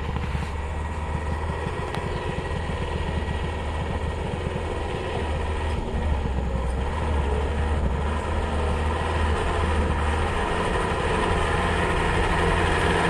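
Small cab-over truck's engine working under load on a steep climb, a steady low running sound that grows slowly louder as the truck comes closer.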